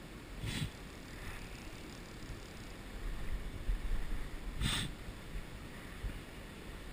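Steady rush of a shallow river riffle with wind rumbling on the microphone, broken by two short swishes about four seconds apart.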